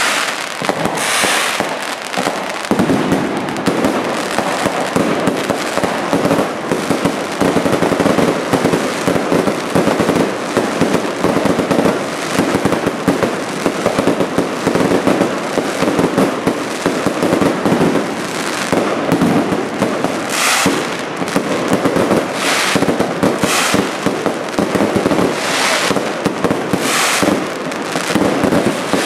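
Aerial fireworks display: a dense, continuous barrage of rapid bangs and crackling from shells and crackling stars. In the second half, short bursts of sharper, higher crackle come every second or two.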